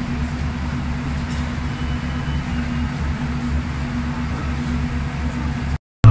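Steady low mechanical hum of a bus at a station stop, heard from inside the vehicle. It cuts off abruptly near the end.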